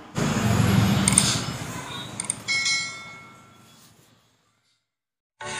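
Subscribe-button animation sound effects: a loud noisy whoosh that fades, a couple of clicks, and a bell chime about two and a half seconds in that rings and dies away. After a moment of silence, music starts just before the end.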